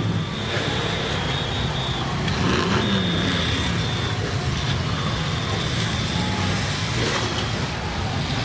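Demolition derby cars' engines running and revving together in a steady rumble, with a few crashes of cars ramming each other.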